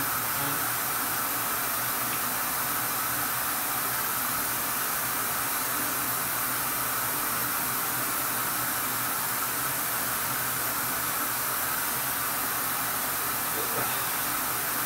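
Steady hiss with a faint low hum, the background noise of the running Tormach 15L slant lathe.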